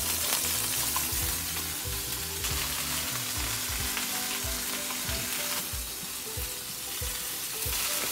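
Chicken pieces sizzling in a hot, oily double-sided grill pan, a steady hiss.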